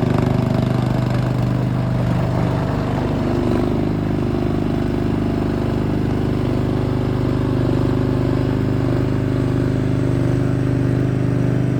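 Rato 15 hp gasoline engine of an AGT MX-MRW14 mini skid steer running steadily, its pitch wavering slightly a few seconds in.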